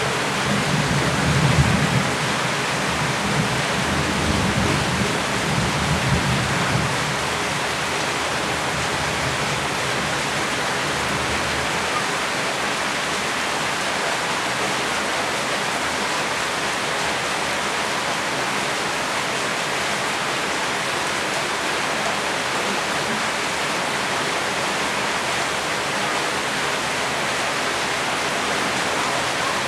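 Steady heavy rain hiss. A low rumble of thunder dies away over the first several seconds, then only the even rain continues.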